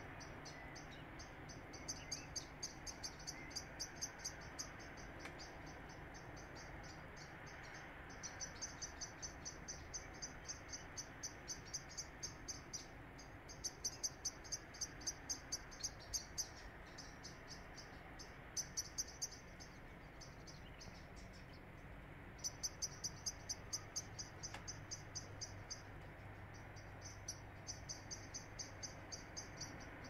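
High-pitched chirps from a small animal, coming in quick, evenly spaced trains of one to three seconds each and repeating with short gaps, over a faint steady hiss.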